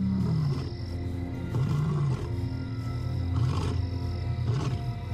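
Male lion roaring: a series of deep roars and grunts, each rising and falling in pitch, with documentary music playing underneath. It is a long-carrying contact call from a lone male trying to find his separated brother.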